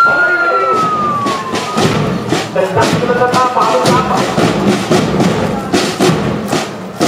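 A police vehicle's siren winding down in a falling wail that fades out within the first two seconds, then parade drums beating a steady march rhythm, about two to three beats a second.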